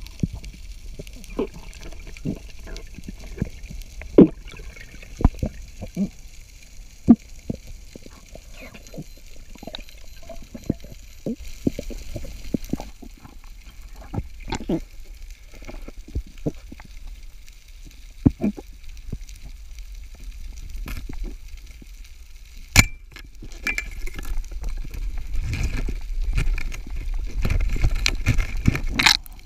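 Underwater sound picked up by a speargun-mounted camera: scattered sharp clicks and pops over a low rumble of moving water. A loud sharp crack comes about 23 seconds in and another near the end, and the rumble swells over the last few seconds as the camera moves fast along the rock.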